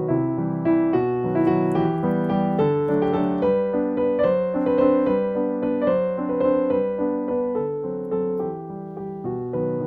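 Background piano music: a gentle melody with chords, steady throughout.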